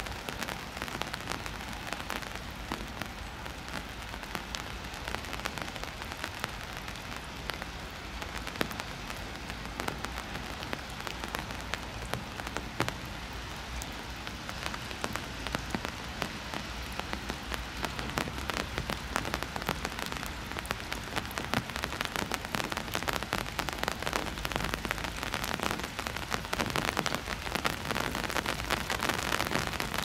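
Rain falling close to the microphone: a steady hiss full of small, quick drop ticks, growing a little louder over the last few seconds.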